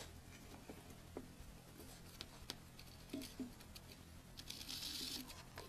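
Faint scratching and rustling of a gerbil moving about in paper bedding and nosing at a folded paper envelope, with scattered small clicks and a short louder burst of paper rustling about a second before the end. A low steady hum sits underneath.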